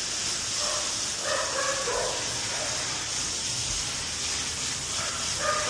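Water spraying steadily from a grooming tub's handheld sprayer onto a dog being bathed.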